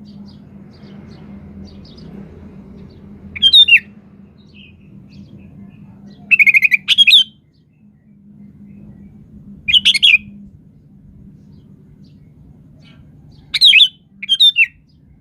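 Sooty-headed bulbul (kutilang) singing in short, loud, chirpy phrases, four bursts a few seconds apart, over a low steady hum.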